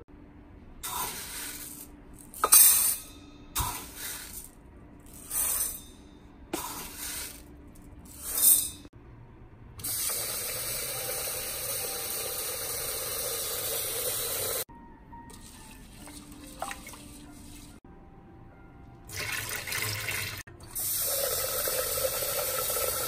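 Dry rice poured into a stainless steel Instant Pot inner pot in several short pours. Then tap water runs steadily into the pot to rinse the rice, twice, with a few short sloshes in between.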